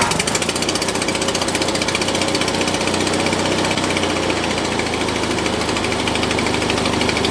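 John Deere 400 garden tractor's air-cooled twin-cylinder Kohler engine running steadily just after start-up, a fast, even pulsing at a constant speed.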